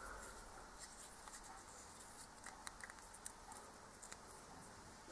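Very faint scraping and a few tiny metallic ticks of a small screwdriver turning the loading-lever counter-screw into the steel frame of a Neumann Rogers & Spencer blank-firing revolver; otherwise near silence.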